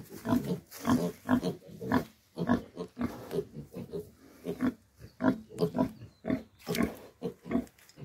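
Pigs grunting, a steady run of short grunts about twice a second.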